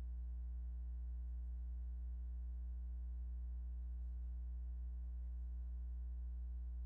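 Steady electrical mains hum: a constant low drone with a ladder of fainter higher overtones, unchanging throughout, with no other sound.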